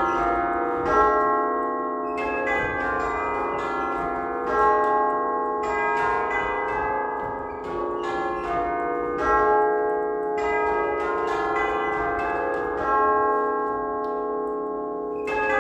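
A peal of eight tubular church bells from 1849, struck by rope-pulled hammers, rung in repeated runs through the eight notes of the scale, each run ending on the lowest bell. The notes ring on and overlap, with a short pause between runs.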